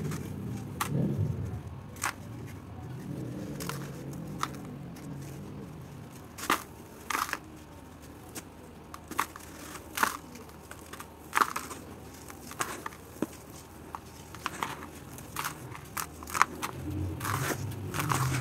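Red dirt block crumbling between the fingers: irregular sharp cracks and crunches as pieces snap off, over a softer rustle of falling crumbs that swells at the start and again near the end.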